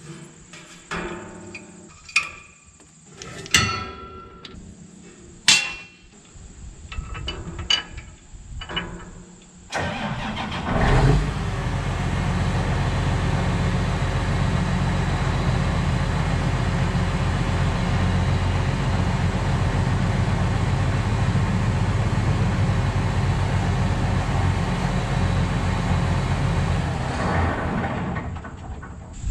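A John Deere tractor's diesel engine starts about a third of the way in, runs steadily for around seventeen seconds, then shuts off near the end. Before it starts there are scattered metal clanks and knocks from the hitch.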